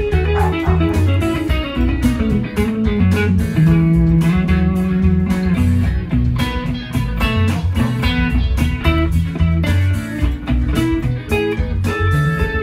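Fender Stratocaster electric guitar playing improvised lead lines in the Mixolydian mode over a sustained bass line.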